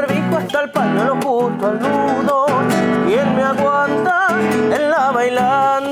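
Folk music, plausibly chamamé: strummed acoustic guitar under a melody with a wide vibrato.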